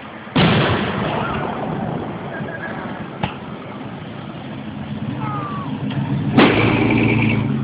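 Fireworks going off: a loud bang shortly in with crackle that fades over a couple of seconds, a sharp pop about three seconds in, and another loud bang near the end followed by a short steady buzz.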